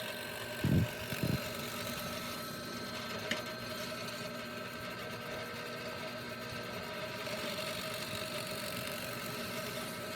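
Bench drill press motor running steadily, drilling depth-stopped holes into a 2x4. There are two low thumps a little under a second in.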